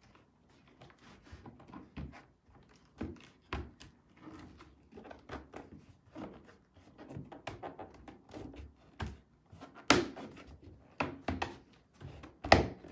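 Hard plastic chick-brooder panels knocking and clicking as they are pushed onto their pegs and pressed down by hand. A scatter of light knocks, with two louder thunks: one about ten seconds in and one just before the end.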